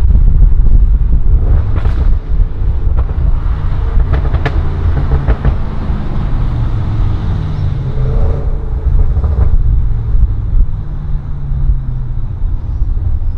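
Audi RS6 Avant's twin-turbo V8 with a Milltek exhaust, heard from inside the cabin on the move: a deep, steady exhaust drone, loudest over the first couple of seconds and swelling again about two-thirds through, with a few short sharp cracks around the middle.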